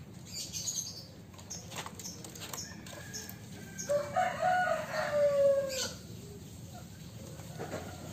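A rooster crowing once, about four seconds in, a drawn-out call of about two seconds that drops slightly in pitch at the end. A few light clicks and knocks come before it.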